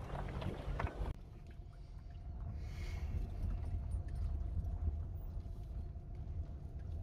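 Low, steady rumble of a vehicle in motion, heard from on board, with the sound changing abruptly about a second in.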